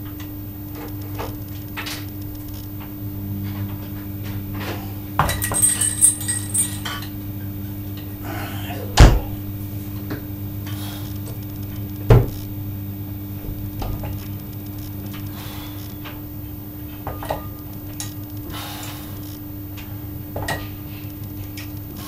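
Metal chains and an iron weight plate clinking and rattling as a chain-loaded grip handle is lifted and lowered, with a burst of ringing clinks about five seconds in and two heavy thuds about nine and twelve seconds in. A steady low hum runs underneath.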